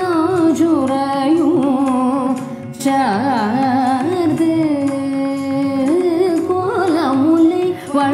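A woman singing a Carnatic vocal phrase in raga Gopika Thilakam, drawing out long vowels with sliding ornaments, over a steady drone.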